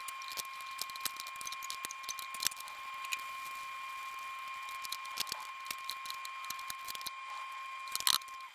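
Small metallic clicks and taps as an Allen key works 8 mm steel bolts into their holes in an aluminium transmission adapter plate. The bolts are so tight a fit that they have to be turned in, though the holes are not threaded. Under the clicks runs a steady high-pitched tone that cuts off near the end.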